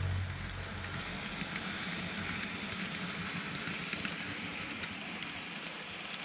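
N-gauge model train running on the layout's track: a steady light whirring hiss with a few faint scattered ticks. A louder low rumble dies away right at the start.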